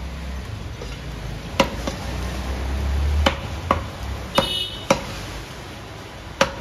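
Butcher's cleaver chopping beef on a wooden block: about seven sharp strikes at uneven spacing, one followed by a brief metallic ring. A low rumble swells underneath around the middle.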